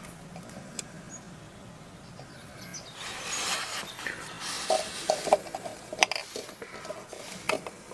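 Handling noise: a rustle about three seconds in, then a few sharp knocks and clicks.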